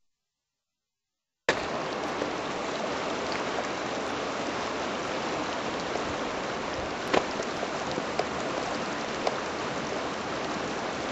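Dead silence for about a second and a half, then the steady rush of river water running over shallow rapids, with a few faint clicks.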